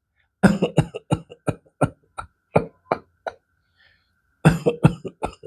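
A man giving a run of many short, weak coughs in quick succession, without a deep breath in: about a dozen, a pause of about a second, then five or six more. It is a demonstration of the classic cough of disease deep in the lung (alveoli, interstitium), which could be pneumonia, lung fibrosis or heart failure.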